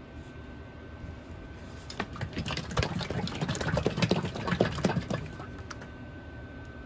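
Plastic oil jug handled and tipped, giving a rapid clatter of small plastic clicks and crackles for about three seconds, starting about two seconds in.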